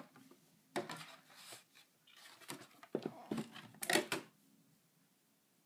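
Foil trading-card pack wrappers crinkling and rustling as they are handled and gathered up, in several short bursts over the first four seconds.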